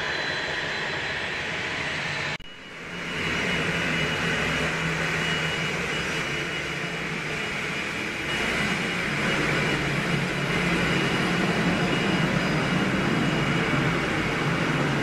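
Cessna Citation XLS business jet's twin turbofan engines running with a steady high whine over a low rumble. The sound drops out briefly about two and a half seconds in, comes back louder, and grows louder again about eight seconds in.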